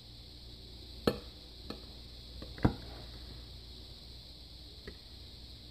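Serrated knife slicing through a soft almond-flour loaf, with a few sharp taps of the blade, the loudest about two and a half seconds in.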